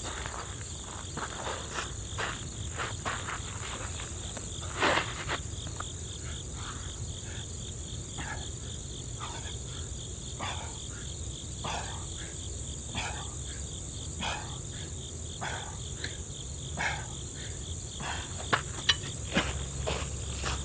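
Steady high-pitched chirping of insects, with scattered soft scuffs and knocks, a few sharper ones near the end.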